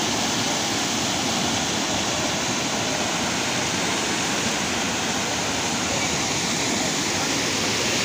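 Steady rush of water tumbling down a small rocky waterfall cascade into a river pool, an even, unbroken noise.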